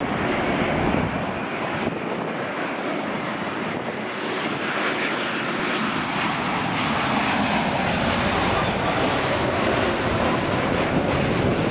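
Boeing 787-8 Dreamliner on final approach with gear down: its jet engines make a steady rushing drone that grows louder in the second half as it comes closer.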